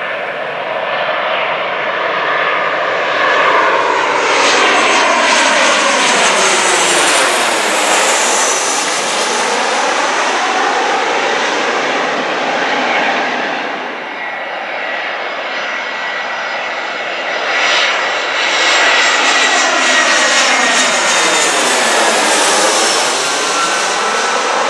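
Twin-engine jet airliners passing low overhead with a loud engine roar that swells and fades twice: the first flyover peaks about eight seconds in, the second near the end. Each pass has a sweeping, phasing whoosh as the aircraft goes over.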